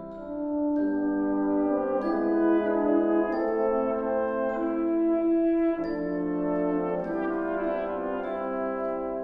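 Wind band playing a slow, sustained passage with the brass to the fore, holding chords that change every second or so.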